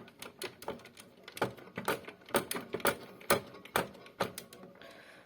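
Irregular sharp plastic clicks and taps from a toy washing machine, about two or three a second, with no steady rhythm.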